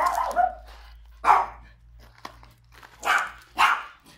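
A small dog barking at close range: about four short barks, the last two close together.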